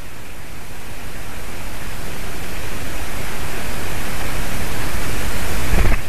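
Wind rushing over an outdoor webcam microphone, a steady hiss with low buffeting that slowly grows louder, and a stronger low gust near the end.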